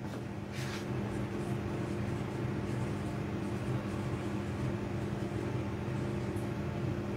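Steady low mechanical hum of room tone, with a few constant pitched tones, like a running fan or air-conditioning unit.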